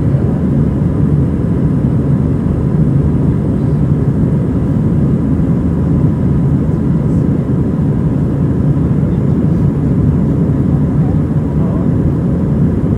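Airbus A320's IAE V2500 turbofan engines heard from inside the cabin over the wing while climbing out after takeoff: a steady, loud low drone of engine and airflow noise with a faint steady whine above it.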